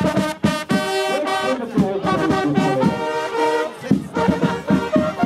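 Fanfare band of valveless fanfare trumpets playing a march tune in held notes, with a regular drumbeat coming in near the end.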